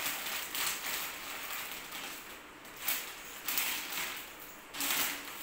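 Clear plastic packing crinkling and rustling as it is handled, in several short bursts.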